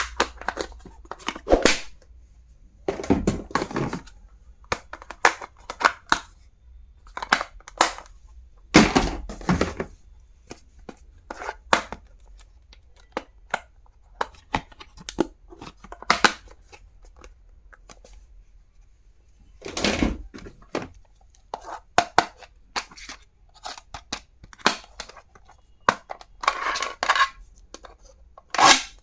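Stationery and its packaging being handled: irregular clicks and taps of plastic items, with a few longer tearing or rustling sounds of packaging.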